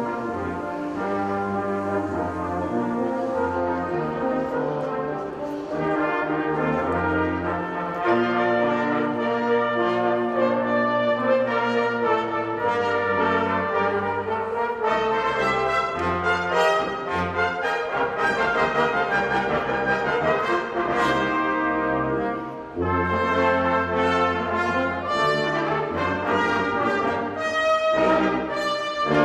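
Brass ensemble playing a piece in sustained, shifting chords, with a brief break in the sound about 23 seconds in.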